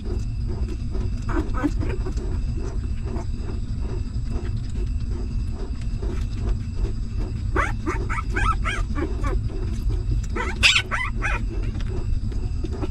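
Newborn puppies squeaking and whimpering while they nurse: a few short high squeaks about a second in, a cluster of whimpers around eight seconds in, and the loudest, shrillest squeal near eleven seconds. All of it sits over a constant low rumble.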